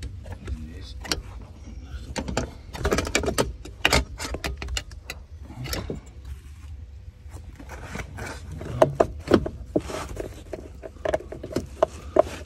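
Gear-shift control cables being pulled through the car's floor by hand: irregular clicks, knocks and scrapes of cable and fittings rubbing on the body, heaviest about three seconds in and again near the end.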